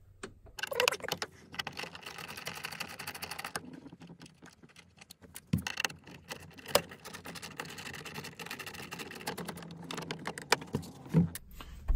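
Screwdriver working T20 Torx screws out of the windshield visor bracket: two runs of rapid clicking, with a few sharper knocks of the tool against the plastic trim.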